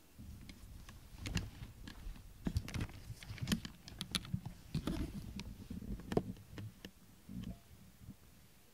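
A cat nuzzling and rubbing right against the camera: a low rubbing noise with an irregular scatter of small sharp clicks, busiest in the middle, dying away near the end.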